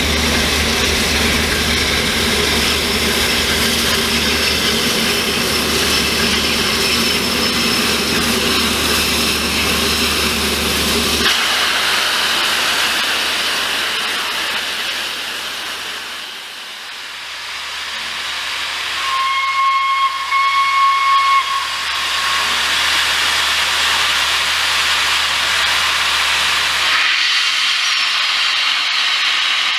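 Peppercorn A1 Pacific steam locomotive 60163 Tornado hissing steam steadily, with a lower hum under the hiss for the first third. About two-thirds of the way through, its whistle sounds one steady blast of about three seconds.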